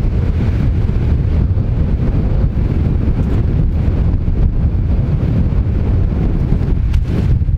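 Strong wind buffeting the microphone: a loud, steady, low rumble of gusts blowing across an open frozen lake, with fine snow drifting over the surface.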